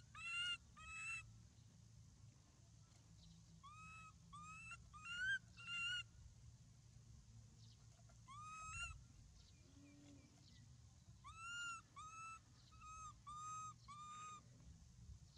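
Short, high-pitched animal calls, each rising then levelling off, repeated in quick runs with pauses between: a run at the start, another a few seconds in, a single call past the middle, and a longer run near the end.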